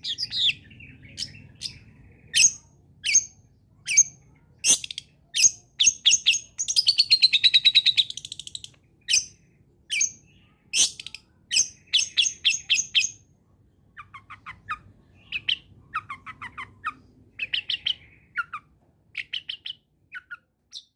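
Long-tailed shrike singing: a run of sharp, high, clipped notes and a rattling chatter, then in the second half quieter, lower twittering phrases.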